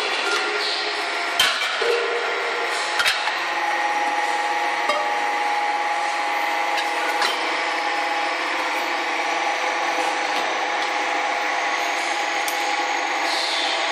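Deep drawing press for fire extinguisher cylinders running: a steady mechanical hum and hiss with held whining tones, and a few sharp metal knocks in the first three seconds.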